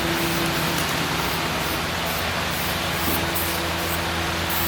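Paint being sprayed in short bursts, each a brief hiss, over a steady electric hum.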